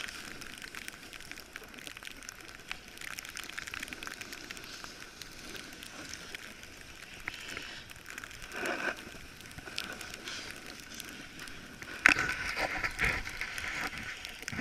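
Snowboard sliding down a groomed slope: a continuous crackling scrape of the board on the snow, louder and harsher for a couple of seconds about twelve seconds in.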